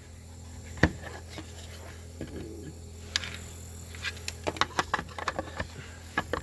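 Small parts of a battery adapter being handled and fitted: one sharp click about a second in, then a run of quick clicks and taps in the second half, over a steady low hum.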